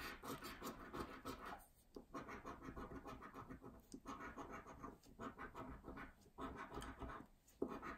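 A coin scratching the coating off a scratchcard in quick, quiet strokes. It comes in several runs of a second or two, broken by short pauses.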